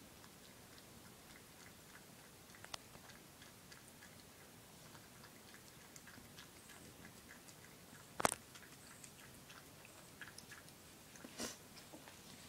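Cat eating moist rehydrated cat food from a bowl: faint, sparse chewing clicks, with a sharper click about eight seconds in.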